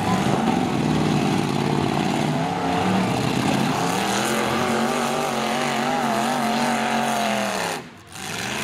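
Demolition derby truck engines revving hard under load. The pitch climbs and holds from about four seconds in, then the sound drops away sharply for a moment near the end.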